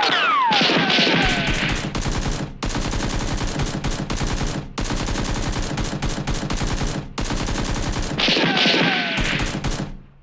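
Rapid automatic gunfire, a continuous burst of shots broken by short pauses about 2.5, 4.5 and 7 seconds in, with falling whistle-like tones near the start and again near the end. It stops abruptly about ten seconds in.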